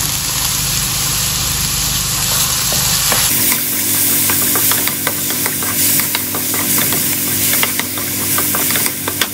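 Chopped tomato, onion and garlic sizzling in oil in a nonstick wok. From about three seconds in, a wooden spatula stirs them, clicking and scraping irregularly against the pan.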